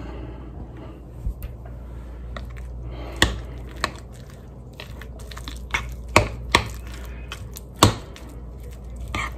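A metal spoon stirring shredded cheese into a thick sour cream and mayonnaise mixture in a bowl, with several sharp clinks of the spoon against the bowl, over a steady low hum.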